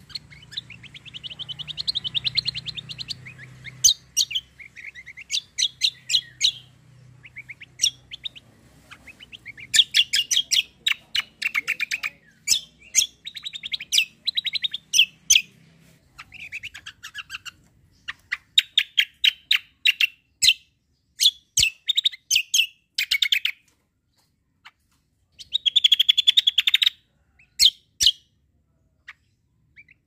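Caged kecial kombo songbird singing in full voice: a long run of short, fast, high trilled phrases with brief pauses between them.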